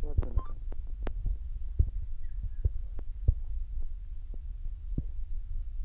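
A steady low rumble with soft thumps and clicks at irregular intervals, from wind and handling noise on a handheld phone microphone.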